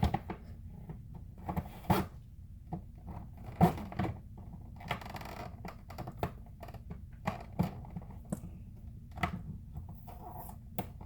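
Cardboard and plastic packaging being handled and slit open with the edge of a fidget spinner: scattered clicks and knocks, with a brief scraping rasp about five seconds in, over a low steady hum.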